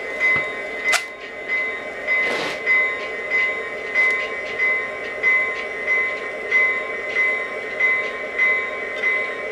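Model SD80MAC diesel locomotive in Conrail livery rolling slowly, its onboard sound system playing a diesel engine rumble over a steady whine, with a rhythmic pulse a little under twice a second. A short hiss comes about two seconds in.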